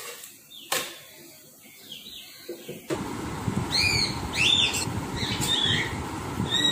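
Small birds chirping repeatedly over a steady background noise that starts suddenly about three seconds in. Before that, a quiet stretch with a single sharp click.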